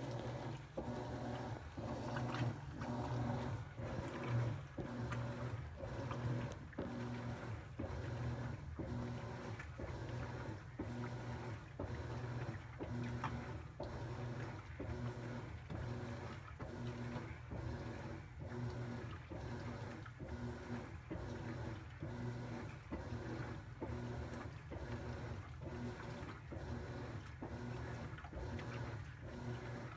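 Top-loading impeller washing machine agitating a load: the motor hums while water sloshes in a steady rhythm of about three pulses every two seconds.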